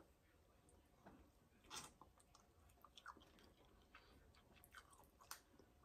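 Faint chewing and scattered small clicks and cracks as crab-leg shell is pulled apart and the meat picked out and eaten.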